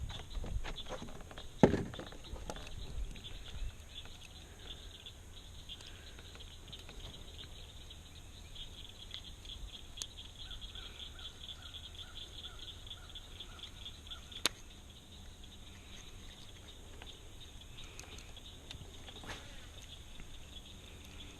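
Insects trilling steadily in a high, pulsing chorus. A few knocks come in the first few seconds, the loudest a sharp thump about two seconds in, and a single sharp click sounds later.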